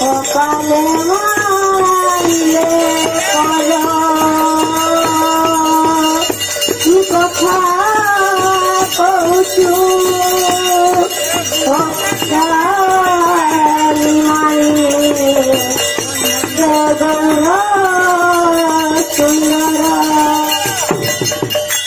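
Odia devotional kirtan: a boy sings long, held and ornamented phrases into a microphone, accompanied by hand-played clay khol drums and a steady high metallic jingle. The singing stops near the end.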